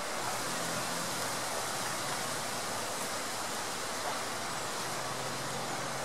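Water of the Soča river rushing in a steady, even hiss.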